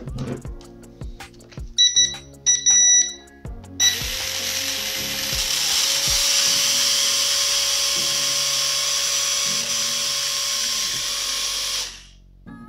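Eachine E58 drone's small electric motors spinning with no propellers fitted, a loud steady high-pitched whir with a faint whine that rises slightly and then holds, running about eight seconds before cutting off sharply: a bench test that all the motors work after reassembly. A few short electronic beeps come just before the motors start.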